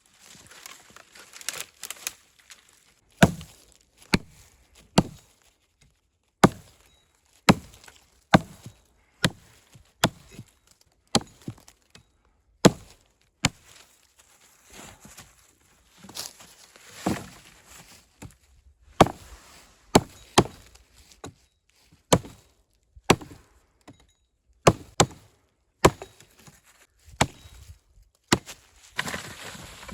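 An axe chopping wood: a long series of sharp strokes, about one a second, with a couple of short pauses.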